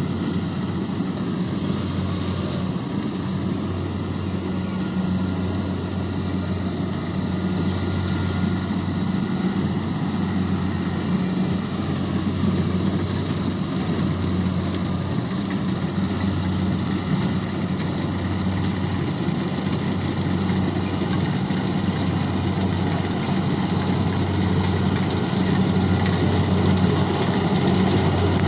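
Heavy farm machinery engine running steadily with a low hum and broad mechanical noise, growing a little louder near the end.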